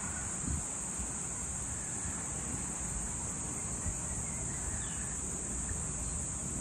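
Steady, high-pitched insect chorus at dusk, a continuous unbroken buzz, over a low background rumble.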